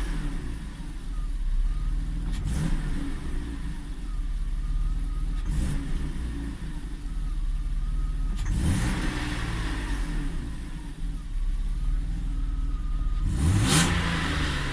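BMW E34's M50B25 2.5-litre inline-six running, revved in short throttle blips about four times that rise and fall back to idle, the last one near the end the strongest. The engine has a rough, shaking idle that threatens to stall.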